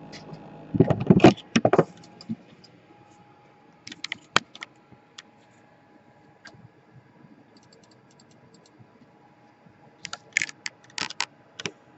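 Small hard objects clicking and rattling as they are handled. There is a loud cluster of clatters about a second in, a few single clicks around four seconds, and another cluster of clicks near the end.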